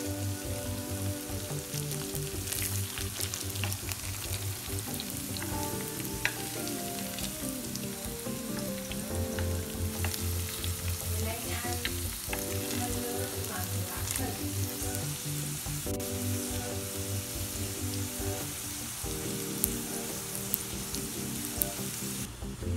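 Egg-coated potato sticks frying in hot oil in a pan, a steady sizzle with crackles and light clicks of chopsticks turning them, over soft background music.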